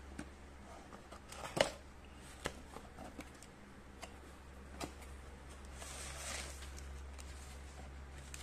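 Cardboard box being opened by hand: the flaps click and tap a few times, with a sharp snap about one and a half seconds in, then paper rustles around six seconds in as the folded instruction leaflet is pulled out. A steady low hum runs underneath.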